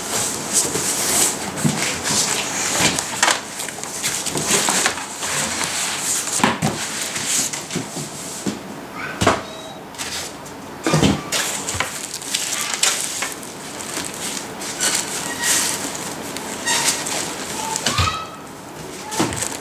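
Unboxing noise: plastic wrap crinkling, foam packing and cardboard rustling and scraping as a computer case is lifted out of its box, with scattered knocks. A few short squeaks come near the end.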